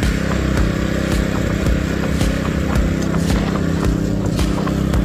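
Honda GX engine of a walk-behind core aerator running steadily at full throttle, with a regular knocking as the tines punch into the turf.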